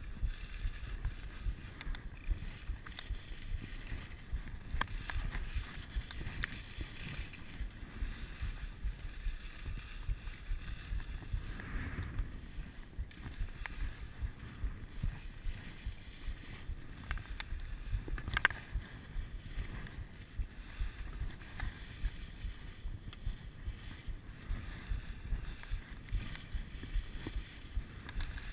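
Wind buffeting a skier's body-mounted action camera microphone during a downhill run, with skis scraping and hissing over snow. A sharp click about 18 seconds in.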